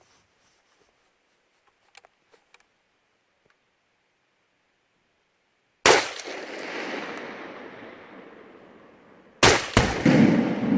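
Two shots from an SKS rifle in 7.62×39. The first comes about six seconds in and echoes away slowly. The second comes near the end and is followed a fraction of a second later by a second sharp bang and a low rolling boom: the Tannerite exploding target detonating when the bullet hits it.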